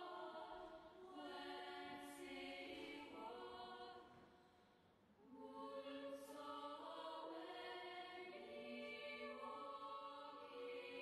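Faint choral music of slow, sustained chords, breaking off for about a second partway through before the chords return.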